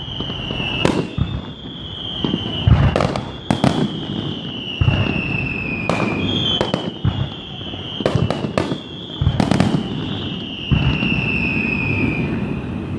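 Fireworks display: aerial shells bursting in a rapid, irregular series of bangs, with a string of overlapping whistles that each slide slowly down in pitch.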